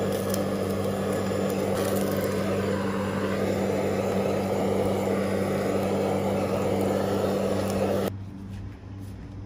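Handheld kitchen blowtorch running with a steady jet hiss as its flame is played over raw pork skin; it stops abruptly about eight seconds in.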